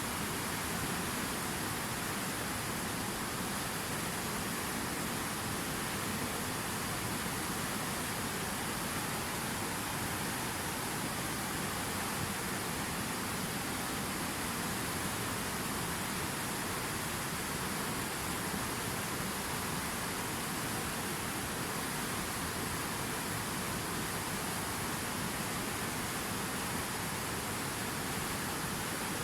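Steady rush of falling water from a waterfall, an even noise with no surges or pauses.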